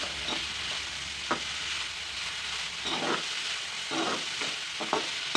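Sliced onions, ginger, curry leaves, garlic and dried chillies sizzling steadily in hot oil in a pan, with a few short scraping strokes as they are stirred while they soften.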